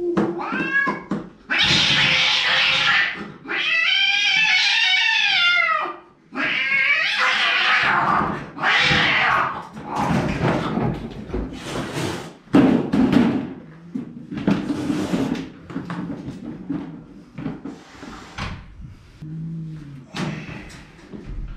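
A fractious domestic cat yowling and hissing in defensive aggression. In the first half come long harsh hisses and a drawn-out wavering yowl. After that come shorter hisses and spits, with a loud knock about twelve seconds in.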